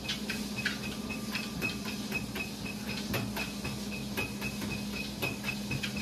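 Treadmill running with a steady motor hum, with light irregular clicks as a Siberian husky puppy walks on the moving belt.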